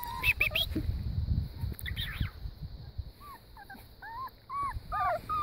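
A young puppy whimpering in short, high rising-and-falling whines, several a second in the second half, over a low rumble in the first couple of seconds.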